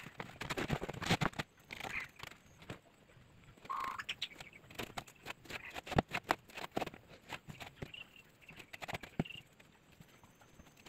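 Quiet, irregular light taps, clicks and scrapes of wet cement being pressed and scraped by hand on a freshly moulded tree-stump planter.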